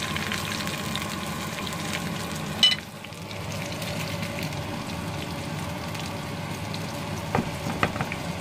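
Battered banana fritters sizzling and crackling in hot oil in a frying pan. About three seconds in, with a sharp click, the sound changes to a quieter, steady hiss from a lidded pot boiling on a gas burner, with a few light clicks near the end.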